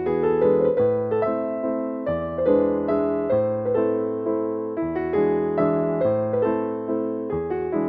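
Background music: a soft electric piano playing a gentle melody over chords, notes struck at an even pace and each fading away.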